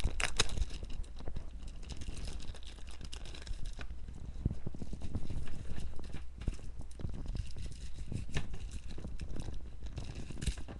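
Packaging crinkling and rustling in irregular crackles as a camera's USB cable is taken out and unwrapped by hand.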